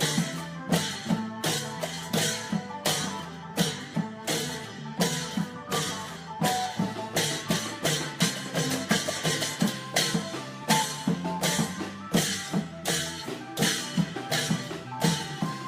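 Isan long-drum (klong yao) ensemble playing a steady, driving beat, with sharp strikes about twice a second.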